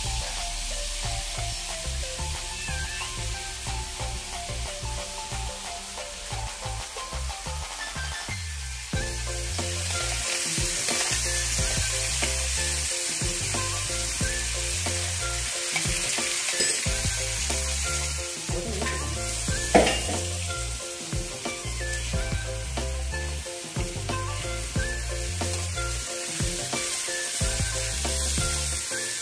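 Ground onion paste sizzling in hot oil in a frying pan while being stirred with a wooden spoon, the sizzle getting louder about nine seconds in; the paste is being fried until the oil separates. Background music with sustained tones and a bass line plays under it, and there is one sharp knock about two-thirds of the way through.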